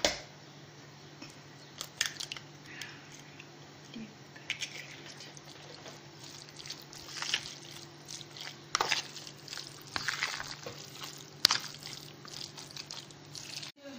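A hand kneading and squeezing a raw egg into a crumbly meatball mixture in a plastic bowl: irregular wet squelches with a few sharp clicks, over a faint steady hum.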